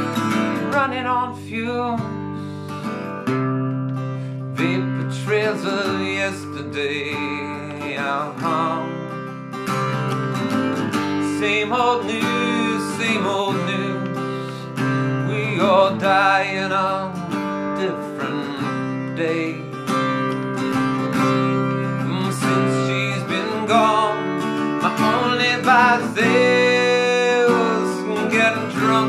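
A man singing to his own acoustic guitar accompaniment, the guitar ringing steadily under a sung melody that comes and goes in phrases.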